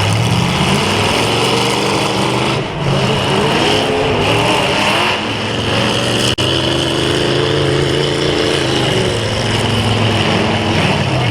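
Demolition derby cars' engines revving up and down, several at once, their pitches rising and falling over one another.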